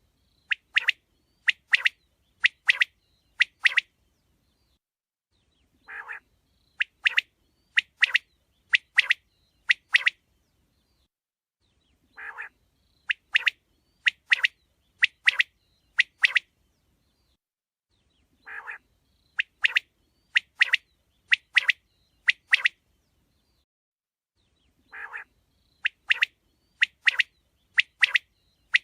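Quail calling in a repeated phrase: a short lower note followed by five or six sharp, high chirps about half a second apart. The phrase comes back about every six seconds, identical each time, five times over.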